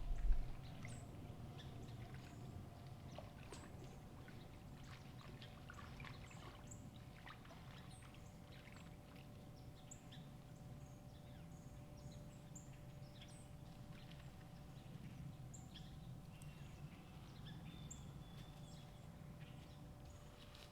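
Quiet woodland ambience: faint scattered rustles and ticks, with brief high bird chirps throughout and a faint steady hum underneath.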